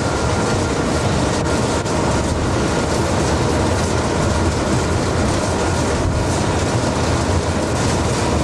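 A train running at speed, heard from inside the locomotive cab at the open side window: a steady, loud rumble of the locomotive and its wheels on the rails.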